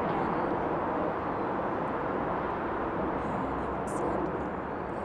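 Steady low outdoor rumble of background noise, such as distant city traffic, easing slightly near the end, with a faint tick about four seconds in.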